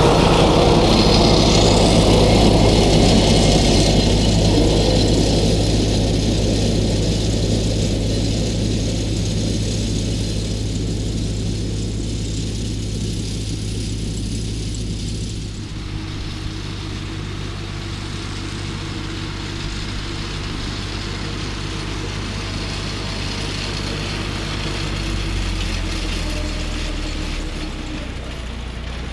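John Deere tractor engine running steadily at working revs while it drives a front-mounted mower through grass, loud at first as it passes close and then fading as it moves away. About halfway through the sound changes abruptly to the same steady engine drone heard from far off.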